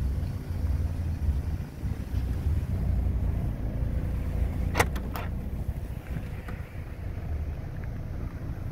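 Audi A5 convertible's trunk latch clicking twice, about half a second apart, roughly five seconds in as the trunk lid is released and opened, over a steady low rumble.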